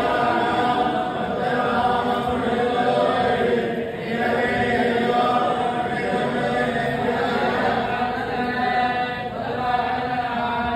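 A group of men chanting a devotional recitation in unison, many voices on steadily held notes, dipping briefly about four seconds in and again near the end.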